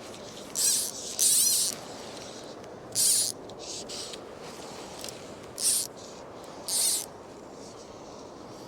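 Fly line being pulled in five short, raspy zips, each under half a second, over a steady background of wind and river noise.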